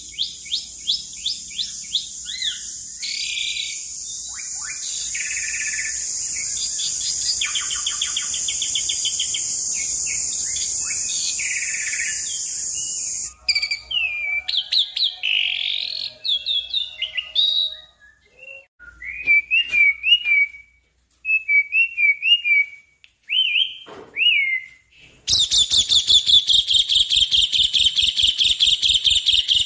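Asian pied starling singing a long, varied song of whistles, slurred notes and chatter over a steady high hiss for roughly the first half. Near the end it breaks into a fast, loud rattle of about ten notes a second.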